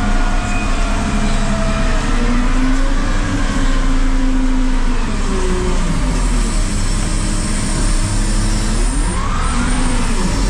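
Volvo L350H wheel loader's 16-litre six-cylinder diesel and hydraulics heard from inside the cab, running under load with the pitch rising and falling as the machine works; a rising whine comes about nine seconds in.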